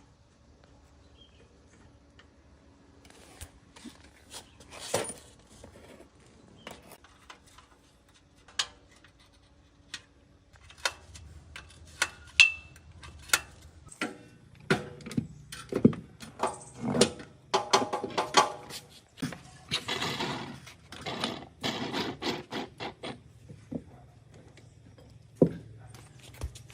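Metallic clicks, knocks and scrapes of hand tools and engine parts being handled during a small motorcycle engine teardown. Sparse at first, then busier, with a couple of longer scraping stretches in the second half.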